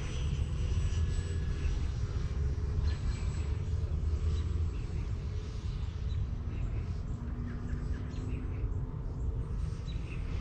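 Distant electric RC airplane's motor and propeller humming as it flies overhead, over a steady low rumble. Faint high chirps come through now and then.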